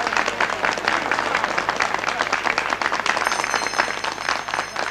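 Many deputies in a parliament chamber applauding, a dense run of handclaps with some voices mixed in, thinning out near the end.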